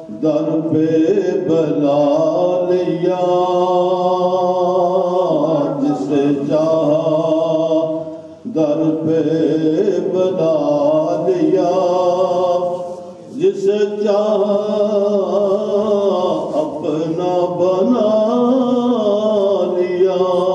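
A solo male voice chanting a naat, a devotional poem in praise of the Prophet, without accompaniment. It moves in long, held, melodic phrases, with short pauses for breath about eight and thirteen seconds in.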